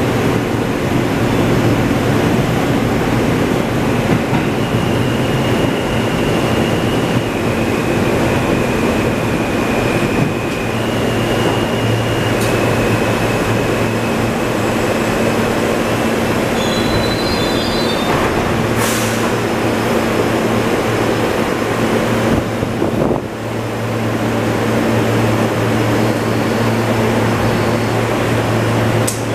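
R160 subway train running on the track: a steady rumble of wheels on rail and traction motors, with a thin high tone that shifts in pitch and a brief wheel squeal about two-thirds of the way through.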